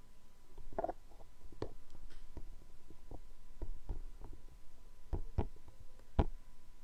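Quiet room tone with about ten faint, irregular clicks and taps, the sharpest near the end: handling noise from the phone that is recording.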